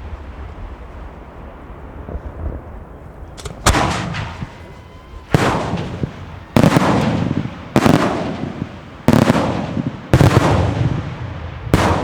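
Aerial fireworks shells bursting: after a few seconds of low rumble, a run of about eight loud bangs, roughly one every second or so, each followed by a long rumbling echo.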